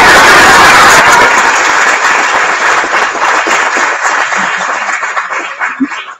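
Audience applauding, loudest at first and dying away over several seconds, ending in a few scattered claps.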